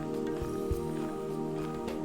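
Background music with sustained chords, over faint footsteps.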